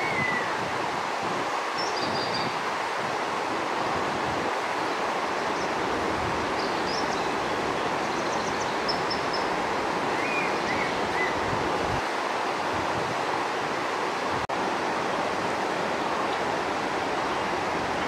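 Steady rush of river water running over rocky rapids, with a few short high bird chirps over it.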